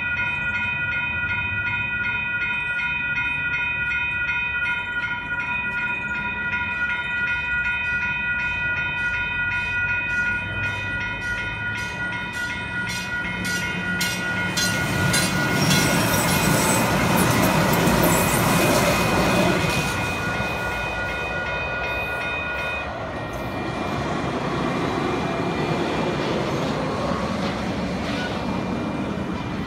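Railroad grade crossing bell ringing in a steady repeated rhythm while a train rolls through, its wheel and rail noise building to a peak about two-thirds of the way in and then easing; the bell stops about 23 seconds in, the crossing clearing as the train leaves.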